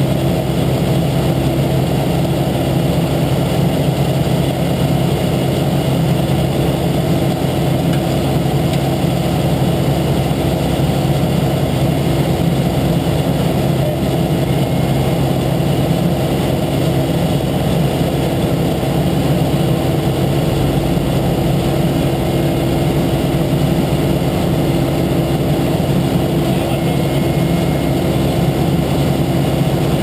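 Diesel engine of asphalt-paving machinery running at a steady speed, a constant even hum.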